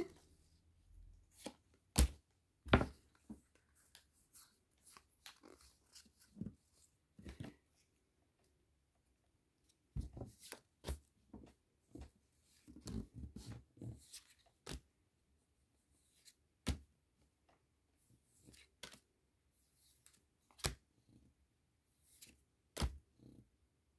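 Pokémon trading cards being handled and slid one by one off a stack onto a playmat: irregular soft flicks and rustles with scattered sharper card snaps.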